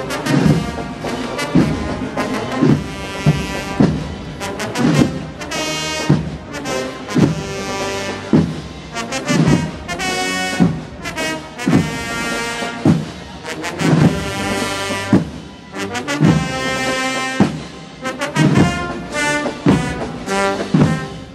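Brass band playing a slow Holy Week processional march, trumpets and trombones carrying the melody over a steady drum beat about once a second.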